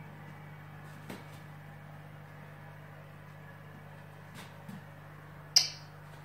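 Steady low hum of an aquarium pump, with a few faint ticks and one short, sharp, high-pitched sound near the end.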